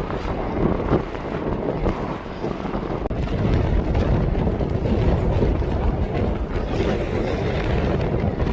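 Strong wind buffeting the microphone: a loud, uneven low rushing that swells and eases in gusts.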